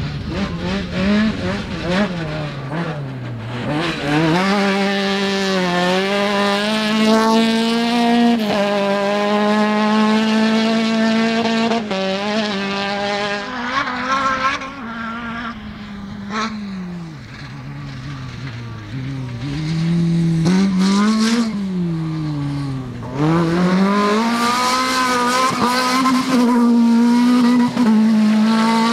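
Off-road rally cars driven hard across a dirt-field stage, engine note climbing and dropping again and again as they accelerate and lift. Briefly quieter about two-thirds in, then a second car takes over, louder, near the end.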